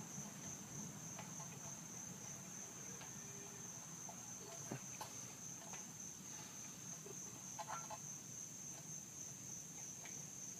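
Insects trilling steadily in a continuous high-pitched chorus, like crickets, with a few faint clicks from hands working a spark plug into a small generator engine.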